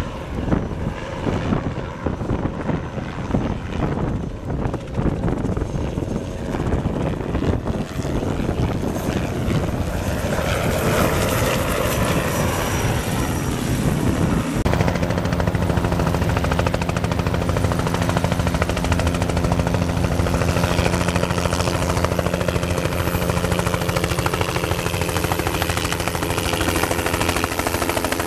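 Bell 206 JetRanger III helicopter flying past, its single Allison 250 turboshaft and two-blade rotor running, at first uneven and gusty. About halfway through the sound changes abruptly to a closer, steady rotor and turbine sound holding several constant tones as the helicopter hangs near overhead.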